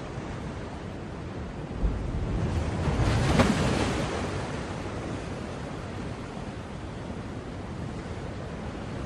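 Steady rush of ocean surf and wind, with one surge that starts with a thump about two seconds in, peaks a second and a half later and fades away.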